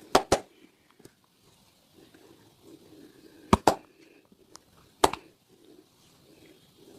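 Sharp smacks of hands during a barber's upper-body massage: a quick pair at the start, another pair about three and a half seconds in, and a single smack about five seconds in.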